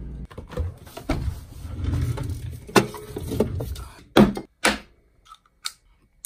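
A drawer sliding and cutlery clinking as a kitchen knife is taken out of a cutlery tray. Then come two sharp knocks about half a second apart as a can and the knife are set down on a tabletop, followed by a few lighter ticks.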